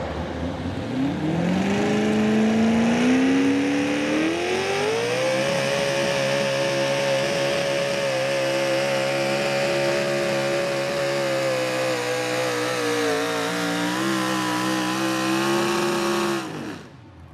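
Pulling vehicle's engine revving up over the first few seconds as it launches on a pull, then held at high, nearly steady revs under load. Near the end the revs are cut and the pitch falls away sharply.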